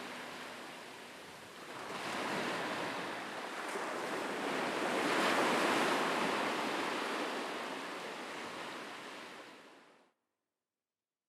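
Sea waves surging onto the shore, with two swells, the second and louder one about five to six seconds in, before the sound fades out.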